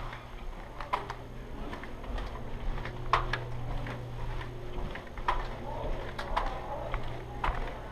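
Scattered sharp clicks and knocks, roughly one a second and unevenly spaced, over a steady low hum.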